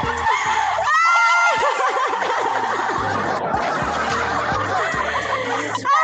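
Women laughing together in quick, breathy giggles and snickers.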